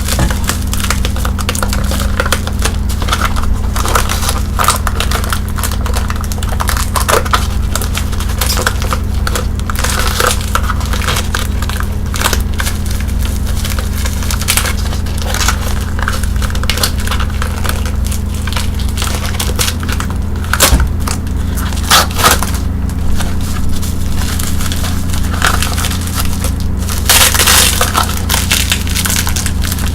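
Bubble wrap being handled and popped: a dense run of crackles and sharp snaps, with a louder crinkling burst near the end, over a steady low hum.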